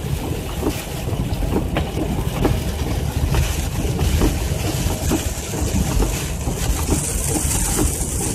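Road noise inside a car driving on a wet highway: a steady low rumble of tyres and engine, with raindrops ticking irregularly against the windshield.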